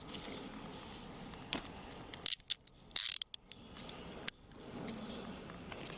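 Handcuffs ratcheting shut on a person's wrists: several short bursts of quick clicks, about two, three and four seconds in.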